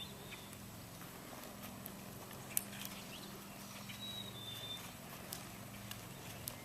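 A horse walking, its hooves giving scattered soft clicks, the sharpest about two and a half seconds in, over a steady low hum.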